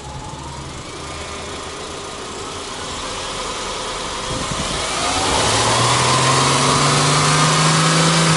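Subaru Legacy Touring Wagon 2.0i's 2.0-litre naturally aspirated flat-four (boxer) engine, heard through the open bonnet, free-revved with no load. The revs climb gradually from idle, and from about halfway through the engine is held steady at raised rpm, louder.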